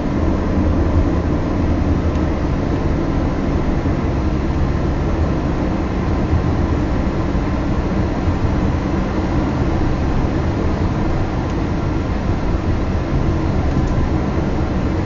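Car driving at a steady pace: a continuous low engine and road noise with a faint steady hum, unchanging throughout.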